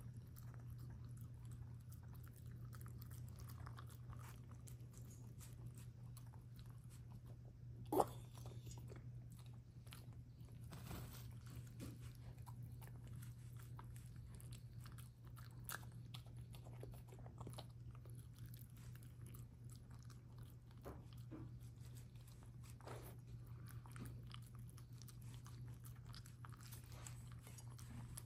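A small long-haired pet eating from a metal bowl: faint, continuous chewing and crunching with small clicks, over a steady low hum. A single sharp knock about eight seconds in is the loudest sound.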